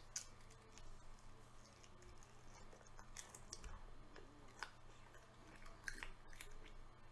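Faint close-up chewing of soft food, with a few scattered soft wet mouth clicks and smacks.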